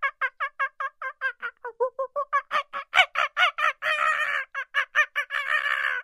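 A primate calling in a rapid series of short pitched hoots, about five a second, growing louder and breaking into harsher, continuous screams about four seconds in and again near the end.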